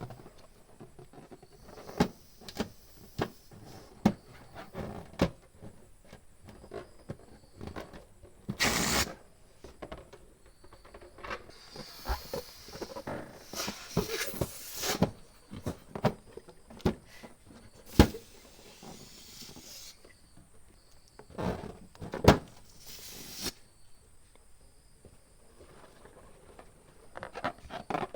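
Balloons being handled and inflated with a hand pump: several hissing pump strokes of air, among many sharp clicks and taps and the odd rubber squeak.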